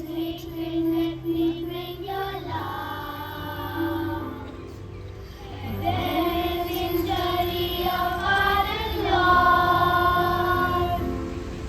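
A group of children singing a hymn together, with long held notes over a steady low accompaniment.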